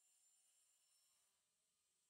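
Near silence, with only a faint steady high hiss.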